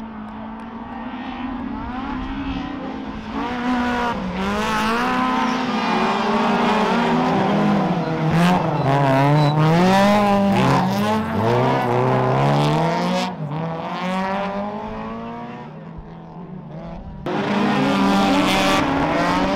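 Rallycross car engines revving hard as the cars race past, the pitch repeatedly climbing and dropping through gear changes and lifts. The sound falls away suddenly about two-thirds through, then another car comes in loud near the end.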